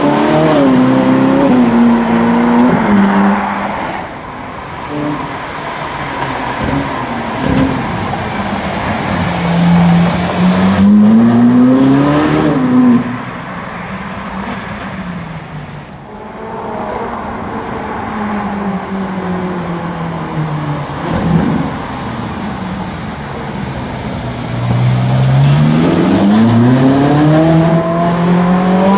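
Ferrari 458 Italia's 4.5-litre V8 accelerating hard, revs climbing then dropping back at each gear change, over several separate passes. The loudest climbs come about ten seconds in and near the end.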